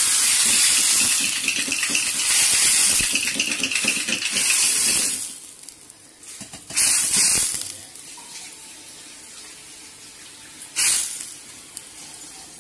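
Hot tempering oil with fried spices and curry leaves sizzling as it is poured from a ladle into hot rasam: a loud hiss that dies down about five seconds in, followed by two short bursts of hissing later on.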